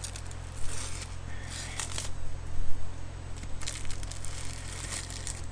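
Plastic film wrapper of a convenience-store triangle kimbap crinkling in several short bursts as it is handled and pulled open, over a steady low hum.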